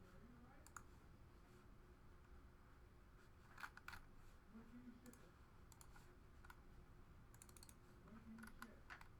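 Near silence broken by a few faint, scattered clicks, with a quick run of small clicks about seven and a half seconds in.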